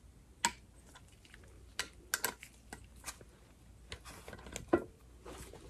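Click-type torque wrench tightening the upper-unit cap bolts to 12 pounds: a string of irregular sharp clicks from the wrench ratcheting and clicking as it reaches its set torque, the loudest click a little before the end.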